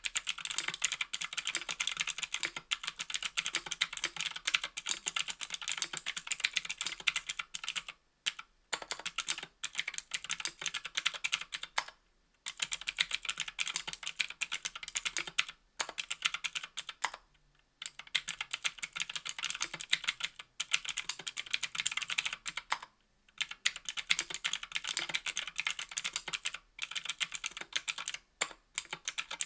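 Continuous typing on a 60% aluminium-case keyboard with stock Gateron Green clicky switches, giving fast, sharp clicks on every keystroke. The typing comes in runs broken by brief pauses of under a second.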